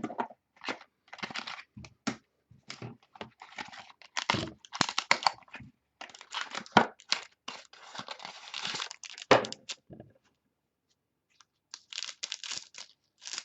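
Packaging being handled: repeated crinkling and tearing rustles in irregular bursts, with a longer spell of crinkling in the middle and a short quiet gap near the end.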